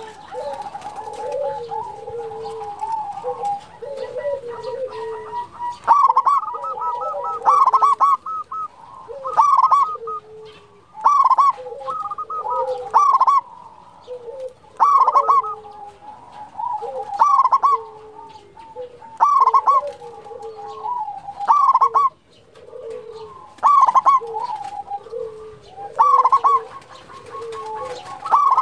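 Zebra dove (perkutut) singing its repeated cooing song. Loud phrases come about every two seconds from about six seconds in, over softer cooing that continues between them.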